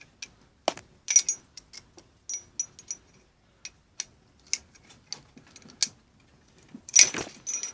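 Irregular small metallic clicks and taps of Colt 1851 revolver parts being handled and fitted back together, with a louder clatter about seven seconds in.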